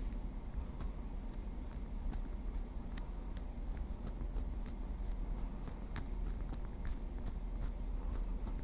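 Light, quick tapping with a small wooden stick: a string of soft, irregular clicks, about three or four a second.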